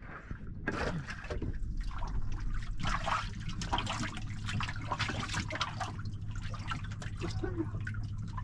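Water pouring and splashing into a boat's hold of live catch, starting about a second in and running on unevenly over a low steady hum.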